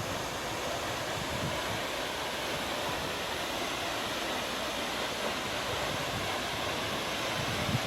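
The steady, even rush of Jeongbang Waterfall's water pouring down.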